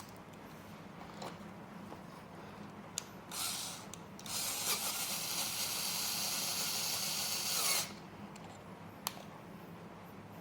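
A tool driving a screw into the chair. It runs briefly a little over three seconds in, then steadily for about three and a half seconds, and stops suddenly. A few separate clicks come before and after.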